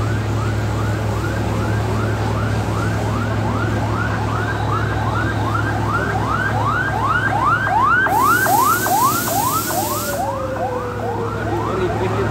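Fire engine siren on a fast yelp, rising sweeps about three a second, growing louder toward the middle and then easing off a little. Under it runs a steady low hum, and about eight seconds in there is a two-second burst of hiss.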